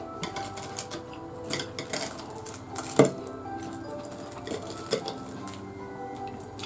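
Chopsticks clicking and scraping against ceramic plates and a bowl as fried food is picked over, a scatter of sharp clicks with the loudest about three seconds in. Soft background music plays underneath.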